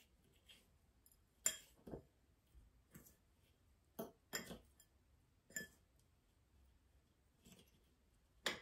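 Scattered light clinks and taps against a mixing bowl, about eight at irregular intervals, as chicken pieces are tossed in crushed protein-chip crumbs. The loudest clink comes about a second and a half in, and another near the end.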